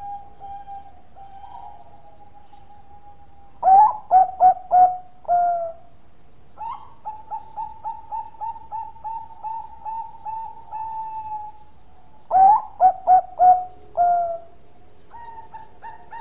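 Zebra dove (perkutut, Thai 'Bangkok' song type) cooing: two loud phrases, each of about five short coos ending in a longer drawn-out note, about eight seconds apart, with a long run of softer quick coos between them.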